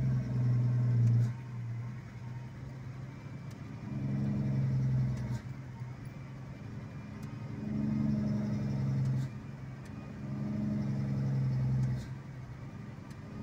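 Vehicle engine running under the cabin as it drives a winding road, its low hum swelling louder for a second or so about every three seconds and dropping back between.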